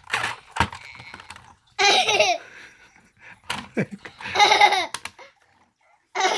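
A young child laughing in three short bursts, with light clicks and knocks of plastic toys being handled in between.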